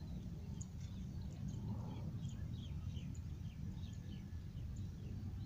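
Small birds chirping in many short, quick calls that fall in pitch, over a low rumble of wind buffeting the microphone.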